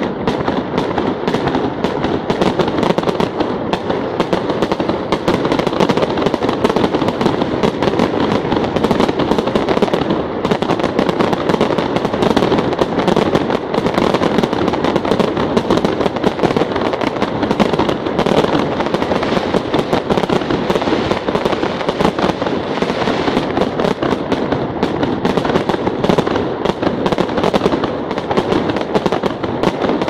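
Fireworks going off without a break: a dense, continuous crackle of rapid small bangs that runs on throughout.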